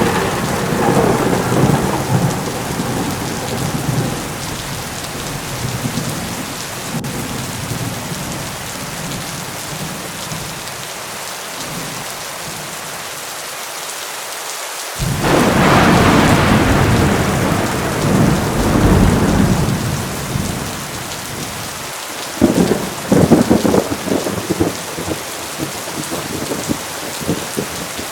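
Heavy rain falling steadily, with thunder. A rumble fades out over the first few seconds. About halfway through a sudden loud peal rolls on for several seconds, and near the end come a few sharp cracking claps.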